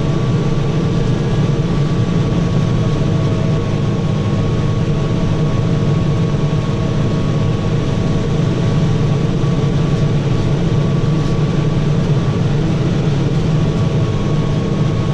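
Farm tractor engine running steadily at working speed, a constant low drone with a thin steady whine on top.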